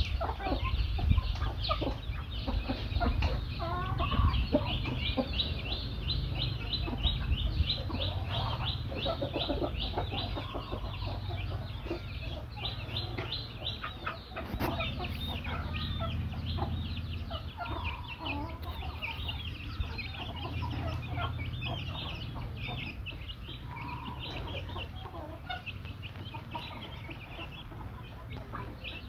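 Chickens clucking softly while foraging, over a continuous run of rapid, short, high-pitched chirps and a low steady hum.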